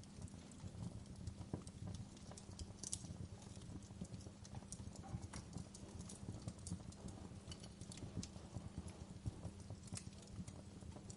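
Fireplace crackling: irregular pops and snaps over a low, steady rumble.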